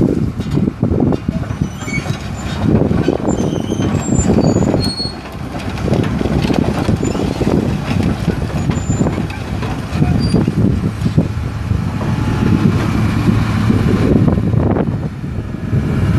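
Komatsu excavator's 8.3-litre six-cylinder turbo diesel running at a steady speed, with heavy wind buffeting the microphone in uneven gusts.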